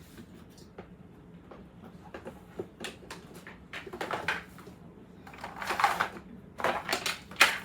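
Clicks, taps and knocks of flat-pack drawer-unit parts being handled and fitted together, with a few longer, louder rustling noises in the second half.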